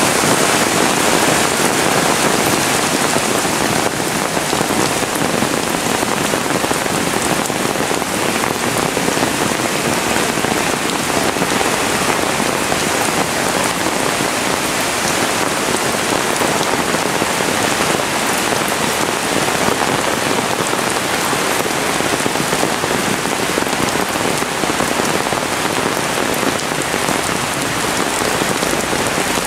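Heavy rain pouring down, a dense, even hiss that stays steady throughout.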